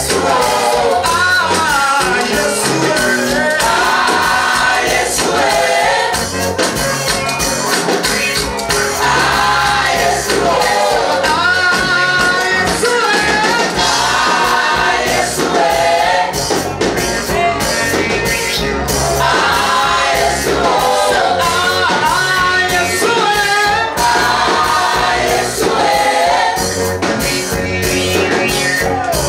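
Gospel song: voices singing a melody over band accompaniment with a steady bass, loud and continuous.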